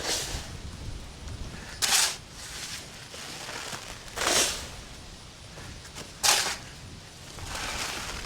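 Wind buffeting the microphone with a low rumble, with four sharp rustling, snapping bursts about two seconds apart as a sheet of light woven geotextile fabric flaps in the wind.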